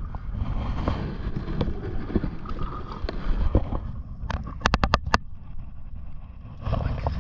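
Wind and sea noise buffeting the microphone on a small open fishing boat, with scattered knocks from handling rods and gear. A quick run of about six sharp clicks comes a little over four seconds in.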